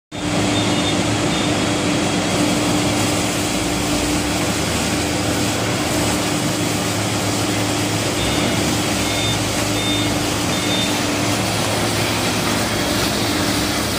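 Two-side veneer grinding machine running steadily as veneer sheets are fed through it: a dense, even grinding noise with a constant hum underneath. Faint short high beeps come now and then.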